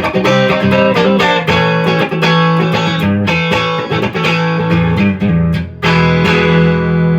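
Electric guitar played clean through a Marshall Origin 20-watt amp with the neck and middle pickups selected (DiMarzio Pro Track and Seymour Duncan Little JB): a run of picked single notes and arpeggios. It ends on a chord struck about six seconds in and left ringing.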